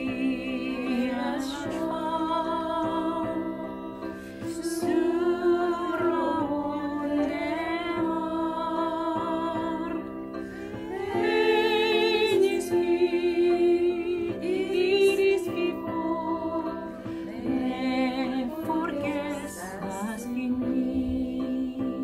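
A small choir of women's voices singing a slow song in Esperanto, with vibrato on the held notes.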